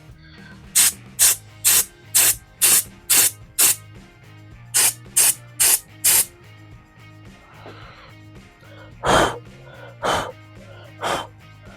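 Aerosol can of contact cleaner sprayed in short hissing bursts, about two a second, in two runs of several squirts, then three longer squirts near the end, over quiet background music.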